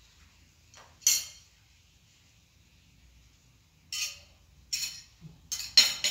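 Plates and dishes clinking: one clink about a second in, then a quick run of short clinks in the last two seconds, the loudest near the end.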